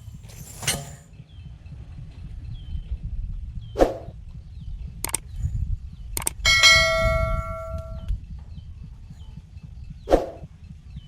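A metal object is struck about six seconds in and rings for about a second and a half. Several sharp knocks come before and after it.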